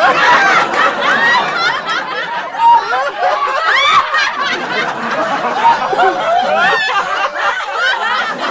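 A crowd of voices chattering and laughing together, many overlapping at once without a break.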